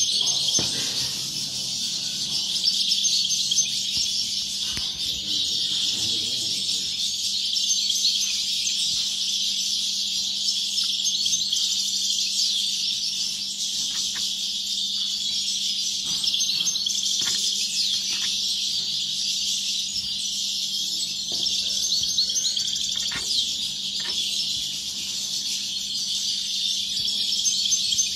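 Many caged European goldfinches singing at once: a dense, unbroken chorus of fast, high twittering song.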